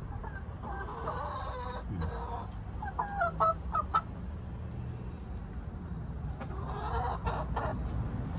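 Backyard hens clucking, with a loud run of short, choppy calls about three to four seconds in and more clucking near the end.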